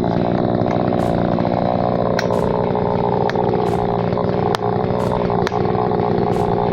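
Chainsaw running at high revs, its pitch sagging slowly through the middle, with a few sharp ticks.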